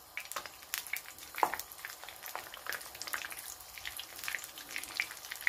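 Hot oil frying cheese-filled pişi dough in a pan: a light sizzle with irregular crackling pops as the pieces of dough are laid into the oil.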